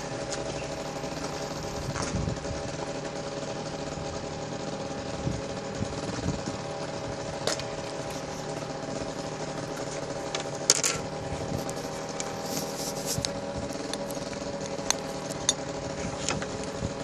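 Small two-stroke motorcycle engine with a Doppler top-end kit idling steadily, with a few sharp clicks over it, the loudest about eleven seconds in.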